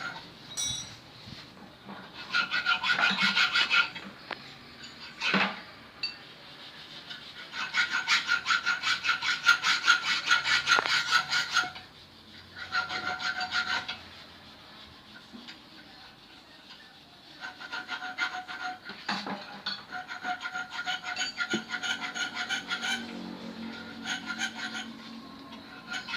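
Bursts of rapid, evenly repeated rasping strokes from a hand tool worked on the car AC compressor, each lasting a few seconds with pauses between. There is a single sharp knock about five seconds in and another near nineteen seconds.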